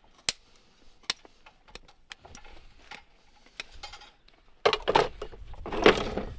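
A few sharp metallic clicks and small taps, then two long rasping strokes near the end: a farrier's rasp filing a horse's hoof.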